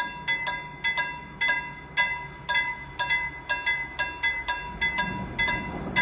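Railway level-crossing warning bell ringing steadily, about two strikes a second. From about five seconds in, the rumble of the approaching train begins to rise beneath it.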